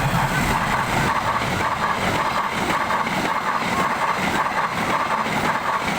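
A train running past, a steady loud noise with a wavering higher tone over it.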